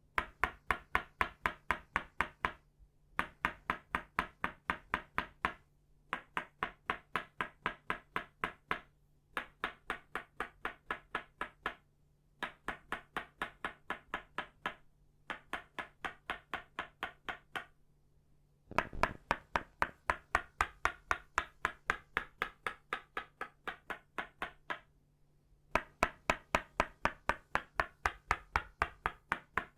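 Tok Sen wooden mallet made of itauba wood tapping a wooden stake in quick, even knocks, about six or seven a second. The knocks come in runs of two to three seconds with brief pauses between them.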